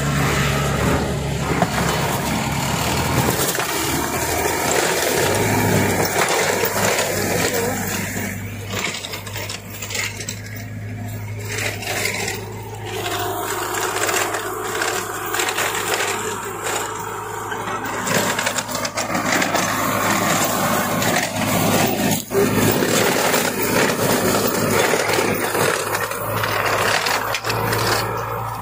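Tractor-mounted sugarcane stubble shaver at work: loud, continuous clatter and scraping as its rotating cutter chops cane stubble at ground level, over the tractor engine. A steady low engine hum joins about five seconds in.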